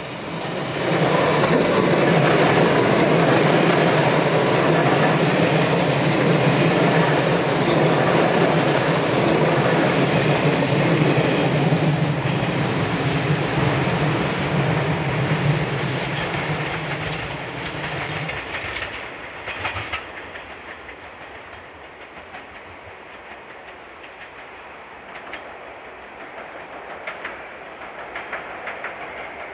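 A train passing close by, wheels clacking over the rail joints under a steady low hum. It is loud for most of the first twenty seconds, then the hum stops and the sound fades to a softer rumble with faint clicks.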